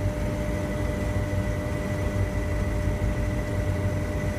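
Steady hum of running machinery: a low drone with a constant higher whine over it, unchanging throughout.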